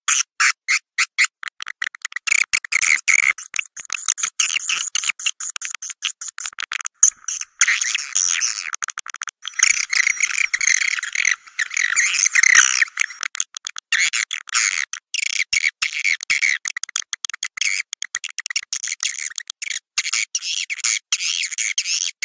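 Swiftlets calling in rapid, chattering twitters, a dense run of short high pulses that thickens for a few seconds in the middle. It is a swiftlet lure recording, played in nest houses to call swiftlets in and get them to roost.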